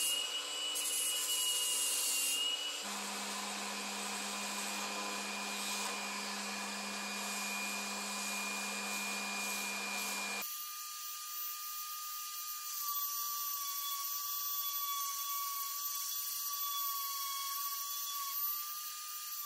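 Angle grinder with an abrasive disc whining steadily as it grinds a weld bead flush on steel sheet. About three seconds in it gives way to an electric random orbital sander running against the metal, a steady hum and hiss, which turns thinner and higher about halfway through.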